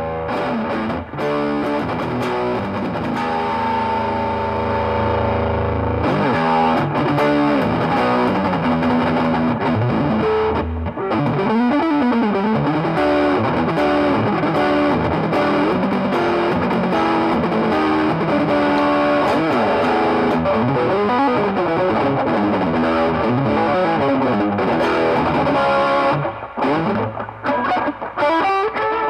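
Electric guitar played through a Mesa/Boogie 5:25 Express 1x10 combo amp. A chord rings out for the first several seconds, then come fast single-note runs and lead lines. Near the end the playing turns choppier, with short gaps.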